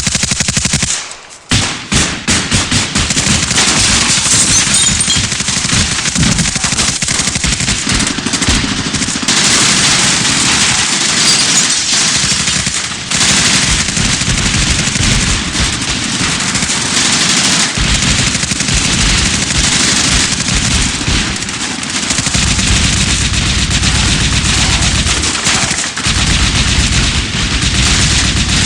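Sustained automatic gunfire: long, dense volleys of rapid machine-gun shots, pausing briefly about a second in and then running on almost without a break.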